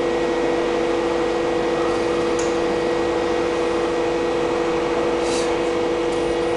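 Mazak Quick Turn QT-6T CNC lathe, powered up and standing ready, running with a steady two-tone hum. A few faint short ticks and a brief hiss come about two and five seconds in.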